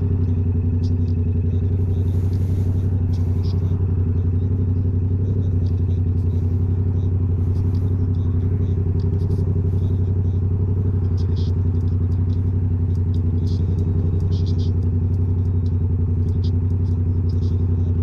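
Yamaha R7 parallel-twin engine through a Toce full-system aftermarket exhaust, running at a steady speed and holding an even pitch, with no revving or gear changes.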